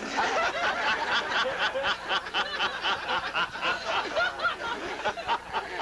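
A group of people laughing and chuckling together, many voices overlapping.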